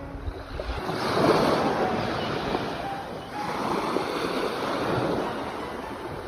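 Ocean surf breaking on a shore. The noise of the waves swells about a second in, eases, and swells again a little past the middle.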